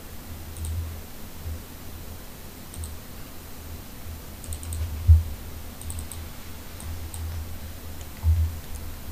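Computer mouse clicks: scattered light clicks, with a quick run of several about four and a half seconds in and again around six seconds. A few dull low thumps come in among them, the loudest about five seconds in and another near the end.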